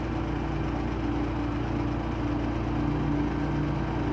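Slow, held synthesizer chords from a background music recording, changing pitch every second or two over a steady low hum.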